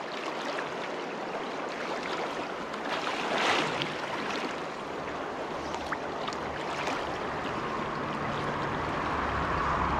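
Shallow freestone stream running over cobbles, a steady rushing of water, with a brief louder swell about three and a half seconds in.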